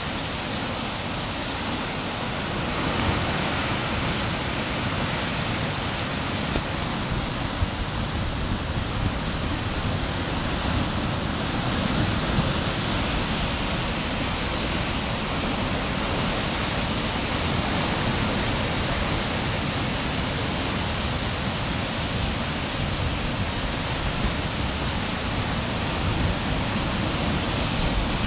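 Cantabrian Sea waves breaking on rocks: a continuous rush of surf that grows louder about three seconds in, with a few brief sharp splashes.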